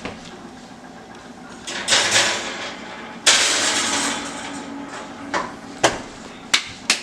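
A kitchen oven door and rack being worked: a rushing slide, a sudden loud scrape that fades over a second or so, then several sharp knocks and clicks.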